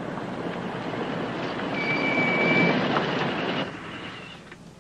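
A vehicle passing by: a rumbling noise that builds and then fades, with a brief high squeal about two seconds in.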